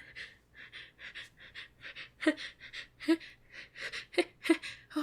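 A person breathing in quick, shaky gasps, several a second, some catching into a short voiced 'ah', louder from about two seconds in: the hitching breaths of a sneeze building up.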